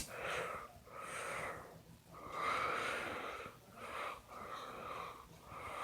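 A person breathing close to the microphone: about six audible breaths in and out through a stuffy nose. A short click right at the start.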